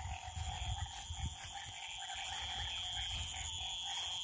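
Steady night chorus of frogs calling continuously from the pond, several pitches at once, over an uneven low rumble on the microphone.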